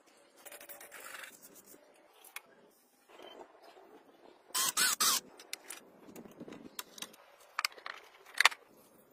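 Hands handling and fitting small rigid model parts, with scraping and sharp clicks. The loudest scrape comes about halfway through, and two sharp clicks come near the end.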